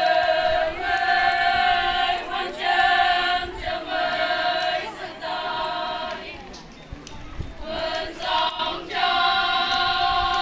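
Chorus of Konyak Naga women chanting in unison: long held notes on a nearly steady pitch, broken every second or so by short breaks. The chant drops away briefly about six seconds in and comes back strongly near the end.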